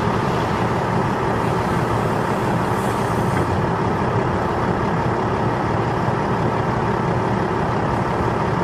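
Heavy diesel mining equipment, a Cat 6015B hydraulic mining shovel loading Cat 777 haul trucks, running with a steady, dense drone and no distinct bangs or impacts.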